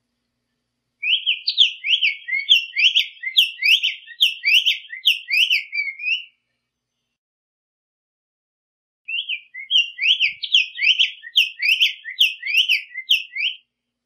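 Black-faced tanager (sanhaço-coleira) singing two bouts of song, each a quick run of clear, slurred whistled notes lasting about five seconds. The bouts are separated by a pause of about three seconds.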